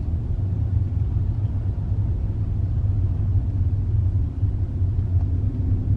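Steady low road and engine rumble heard from inside the cabin of a moving car.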